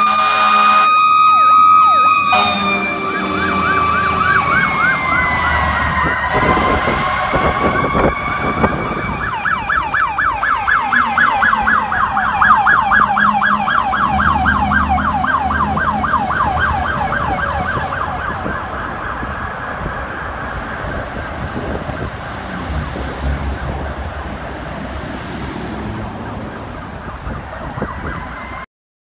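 Fire-rescue trucks passing with sirens going: a steady wail tone that sags and then climbs again, over a rapid, repeating yelp. The low rumble of truck engines goes by underneath.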